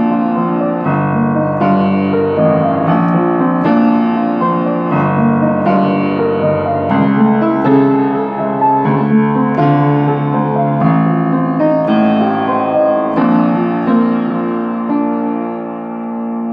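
Instrumental piano music: sustained chords changing about once a second, growing slightly quieter near the end.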